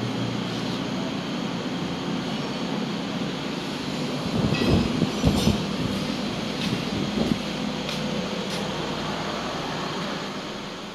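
A steady mechanical drone, like a running engine, with a few louder knocks about halfway through.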